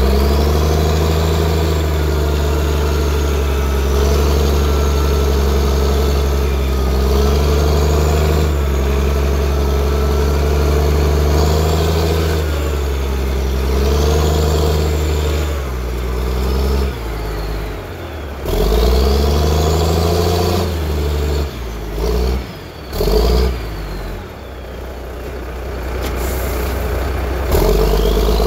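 Caterpillar 320CL excavator with a Cat 3306 inline-six diesel, running under load while digging and loading rock: a steady engine note with a hydraulic whine that rises and falls as the boom, stick and bucket move. In the second half the engine note sags and picks up several times before settling back to steady running near the end.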